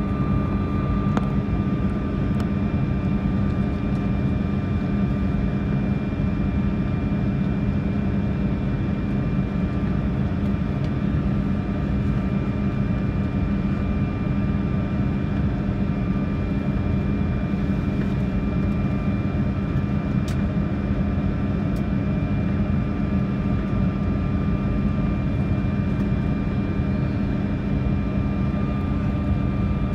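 Steady cabin drone of a Bombardier CRJ-200 regional jet heard from inside the cabin: a low, even hum with a thin high whine held on top, not changing in pitch.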